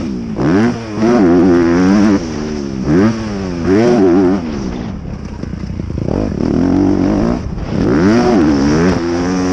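Honda CRF250R 250 cc four-stroke single-cylinder motocross engine, heard from the rider's helmet. It revs up and drops back again and again as the throttle is opened and closed, with a quieter off-throttle stretch about halfway through.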